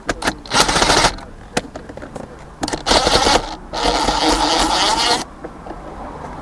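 Plastic interior trim around the shifter being worked apart, scraping in three spells with sharp clicks in between.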